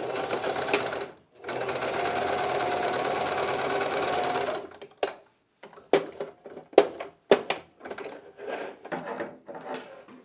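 Singer electric sewing machine stitching a seam through cotton fabric: a run of just over a second, a brief stop, then a steady run of about three seconds. After the motor stops, a string of light clicks and knocks.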